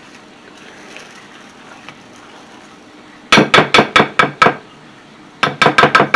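Spoon knocking against a glass mixing bowl while stirring thick cookie dough: quiet for about three seconds, then a quick run of about seven sharp clacks with a slight glassy ring, a short pause, and another run near the end.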